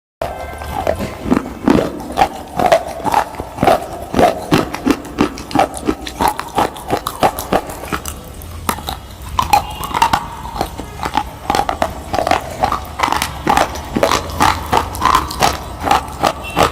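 Crunching of food being bitten and chewed, a quick, steady run of sharp crunches about two to three a second.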